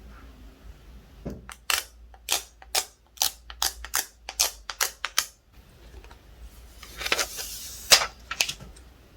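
A run of about a dozen sharp clicks and taps of hard glass and plastic while a tempered-glass screen protector is fitted to a phone, then a crinkly rustle of plastic film with one loud click near the end.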